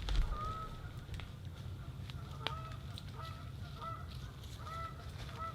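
Geese honking over and over, short arched calls following one another about every half second, with a few sharp clicks in between.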